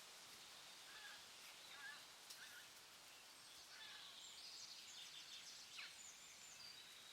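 Faint forest ambience: small birds chirping and twittering over a steady hiss, with short scattered chirps at first and a busier high twitter from about halfway in.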